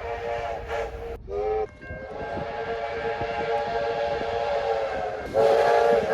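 Train horns sounding in several blasts. A held multi-note horn cuts off about a second in, followed by a short blast, then a long sustained chord, and a louder blast near the end.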